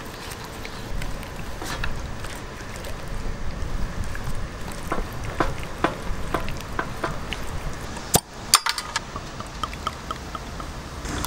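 Gloved hands working a wet marinade into whole raw chickens in a metal tray, with scattered soft taps and clicks. About eight seconds in come two sharp clicks, then beer is poured from a glass bottle into a glass.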